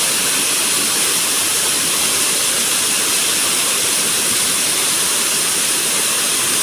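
Waterfall: falling water rushing loudly and steadily.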